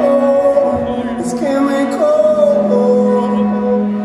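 Live rock band playing: a male lead singer holds long sung notes over electric and acoustic guitars, bass and drums.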